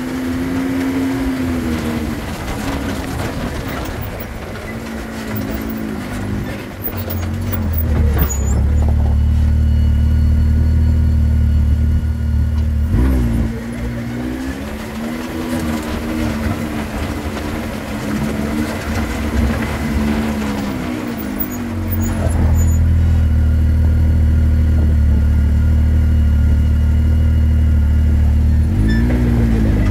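An off-road vehicle's engine running as it drives down a rocky dirt trail. Its pitch rises and falls with the throttle, and a louder, deeper steady sound sets in from about eight to thirteen seconds in and again from about twenty-two seconds in to near the end.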